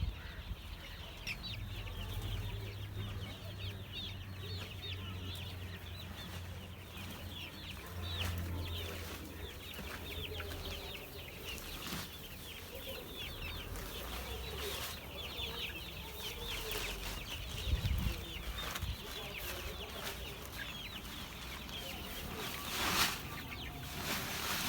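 A flock of young chicks peeping continuously: many short, high, falling cheeps overlapping. A low steady hum runs under the first half, and there are a few knocks near the end.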